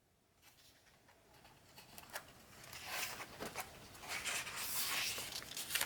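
Quiet rustling and a few light clicks of picture-book pages being handled and turned, starting after about two seconds of near silence.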